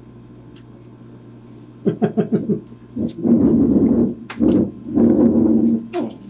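Loud, drawn-out vocal sounds from a man, without clear words, in several bursts starting about two seconds in; the two longest last about a second each.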